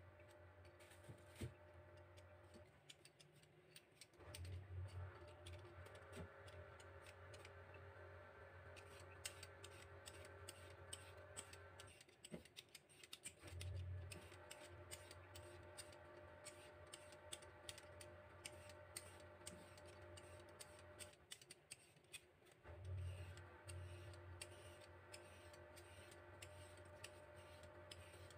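Faint, quick scraping clicks of a handheld vegetable peeler stripping the skin off a long root vegetable, the strokes coming thicker in the second half. A steady background hum runs underneath, with three brief low bumps about nine seconds apart.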